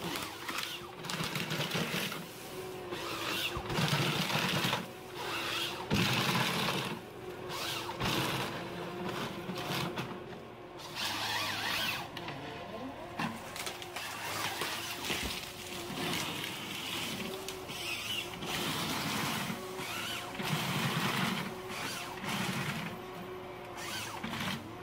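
Ponsse Ergo forest harvester working with its C44 H7 harvesting head on spruce: a steady machine hum with recurring swells as it comes under load, and irregular bursts of rasping, crackling noise from the head handling the stems.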